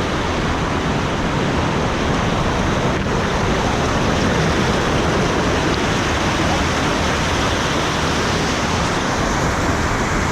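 Loud, steady rush of fast-flowing river water over rocks.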